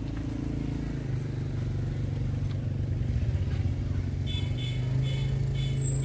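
A motorbike engine running steadily with a low hum. Beginning about two-thirds of the way in, a run of short, quick high beeps repeats.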